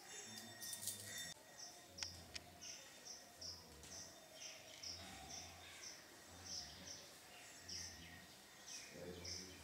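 Faint, regular high-pitched chirping from a small animal, about two short chirps a second, over a faint low hum, with one sharp click about two seconds in.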